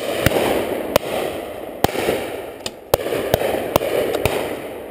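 A rapid series of shotgun shots, about ten in under five seconds, some close and loud and some farther off, from several guns firing at driven pheasants, with an echo rolling on between them.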